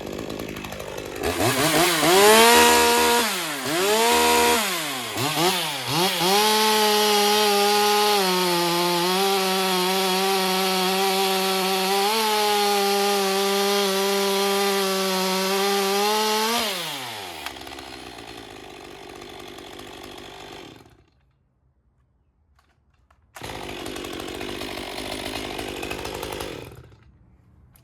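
Stihl MS 201 TC-M top-handle chainsaw's two-stroke engine revved sharply three times, then held at full throttle for about ten seconds before the revs fall away. The M-tronic saw is running right again after a no-start repair.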